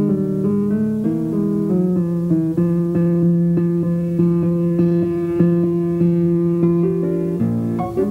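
Instrumental background music: a quick run of plucked notes over held lower notes, changing chord near the end.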